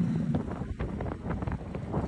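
Wind buffeting the microphone, a low rumble with a string of light clicks and knocks.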